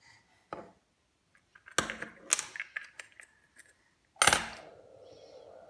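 Brass ball float valve parts and a metal spanner being handled, with a run of sharp metallic clicks and knocks as the valve is taken apart. Then one loud metal clack with a ringing tone that fades over about two seconds.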